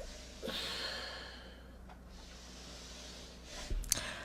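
A long breathy exhale like a sigh, starting about half a second in and fading out, then a soft thump and a couple of sharp clicks near the end.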